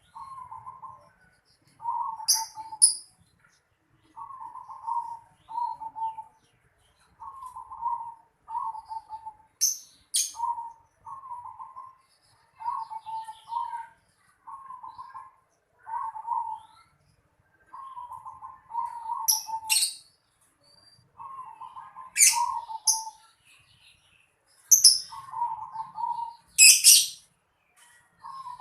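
Zebra dove (perkutut) cooing: short phrases of soft rapid coo notes repeated every second or two. Sharp high chirps cut in now and then, loudest about a third of the way in and near the end.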